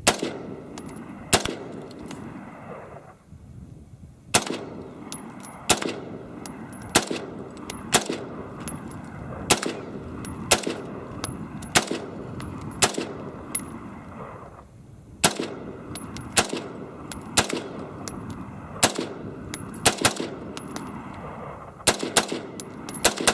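AR-15 rifle in .223 firing one shot at a time: about twenty sharp, echoing shots at roughly one a second, with a short break about three seconds in and another near fifteen seconds.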